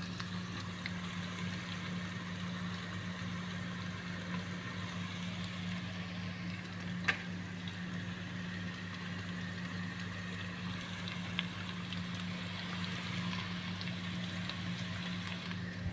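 Chopped bacon and sausage sizzling in butter in a pot, a steady hiss over a low hum. A single sharp click about seven seconds in.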